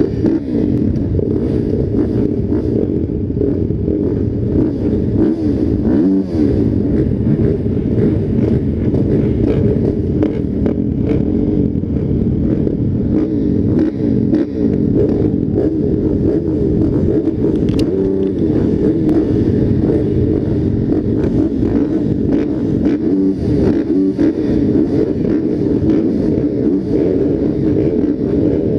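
Motocross bikes racing on a dirt track, several engines revving up and down in pitch at once as they accelerate and shift.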